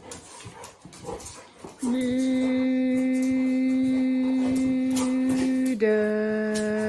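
A long, drawn-out spoken 'Müüüde' (tired), a conditioned relaxation signal for the dogs: one steady held note that steps slightly down in pitch on the second syllable about six seconds in. Before it comes the faint scuffling of two dogs playing.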